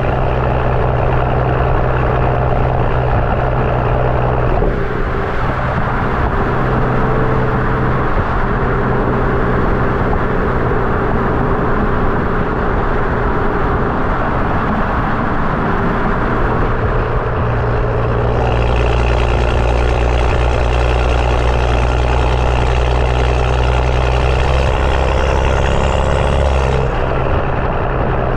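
BMW F30 335i's N55 turbocharged inline-six driving through a catless downpipe and M Performance exhaust: a steady, loud low exhaust drone. The note shifts about five seconds in and again near the end, with a faint rising whine just before the last change.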